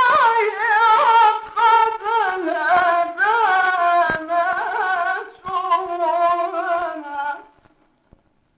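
A male voice in melodic Quran recitation, one long ornamented phrase with sliding pitch and vibrato that stops about seven seconds in, followed by a few faint clicks.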